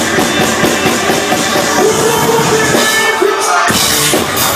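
Loud live concert music with a heavy drum beat, playing through a venue PA. The bass cuts out briefly about three and a half seconds in, then returns.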